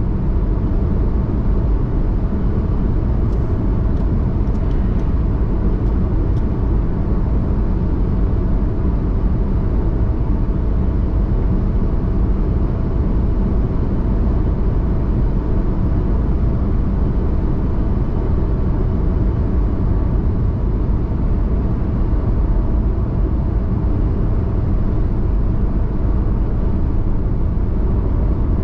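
A car cruising at highway speed: a steady low rumble of tyre, road and wind noise heard from inside the car, with a few faint ticks about four to six seconds in.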